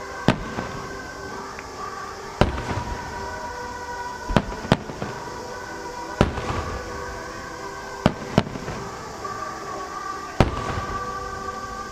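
Aerial firework shells bursting in a starmine: about eight sharp booms at uneven spacing, two of them in quick pairs.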